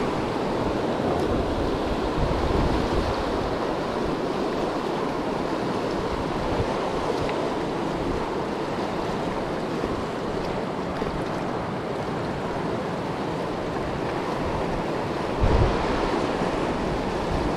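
Fast river water rushing steadily over rapids and riffles, with wind buffeting the microphone in a brief low bump near the end.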